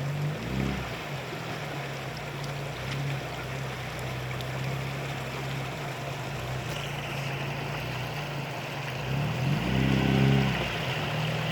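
Opel Frontera's engine running steadily under load off-road, with a short rise in revs about half a second in and a longer rev-up near the end. A steady rushing noise runs underneath.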